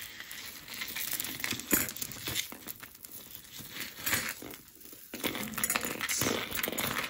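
Crinkling and rustling of packaging being handled, in irregular bursts with a few sharp short crackles.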